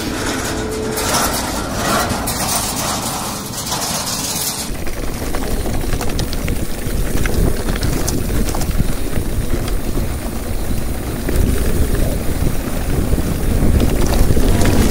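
A Claas telehandler's diesel engine running close alongside for about the first five seconds. Then a low rumble of wind and tyres as an electric mountain bike rolls over a rough, stony stubble-field track, with the bike rattling.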